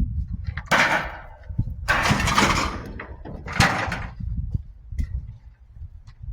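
A metal barbecue being heaved onto a scrap truck's bed, clattering and scraping in three bursts, the middle one longest, over a low rumble.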